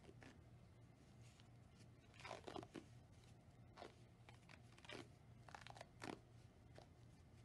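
Faint crackling rasps of bandage tape being pulled off its roll and wound around a big toe, in several short bursts, the strongest cluster about two seconds in.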